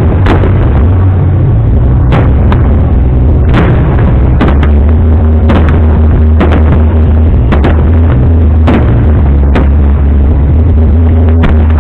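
Fireworks shells bursting in an irregular string of sharp bangs, several a second at times, over a continuous deep rumble. Very loud throughout.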